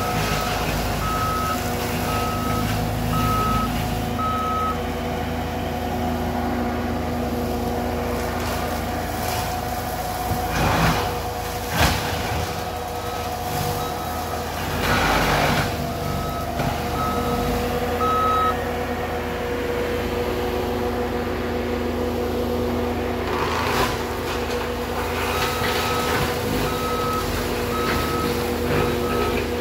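Diesel engine of a skid steer running a hydraulic Alpha Wolf XP brush cutter. Its backup alarm beeps about twice a second in three spells as the machine reverses. A few louder, noisy rushes come about a third of the way in, near the middle, and again about four-fifths through.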